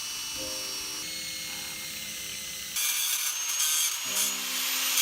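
A power tool working on freshly welded steel seat brackets during cleanup and drilling. It starts as a steady whir, then about three seconds in turns suddenly louder and harsher, like metal being ground or scrubbed.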